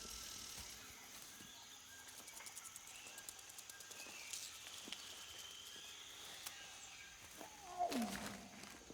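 Film sound design of a jungle at night: a steady high insect drone with scattered chirps and a quick run of clicking ticks. About halfway through comes a held high call, and near the end a louder animal call that glides steeply down in pitch.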